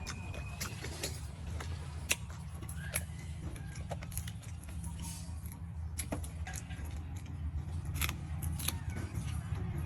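Scattered sharp clicks and clinks from eating seafood, over a steady low hum.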